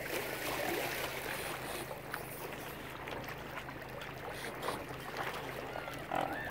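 Waterside ambience: a steady wash of lapping water and wind over a low, steady hum.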